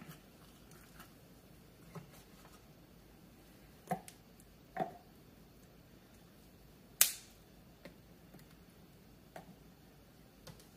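Scattered soft knocks and clicks of red potatoes and carrot pieces being set into a slow cooker's crock, with one sharper, louder click about seven seconds in.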